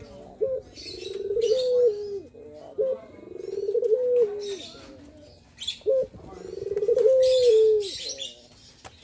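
Male ringneck dove (puter) cooing: three long coos about two and a half seconds apart, each swelling up as a quick roll into a held note that drops in pitch at the end, with short single coo notes between them. Small birds chirp in high twitters over the top.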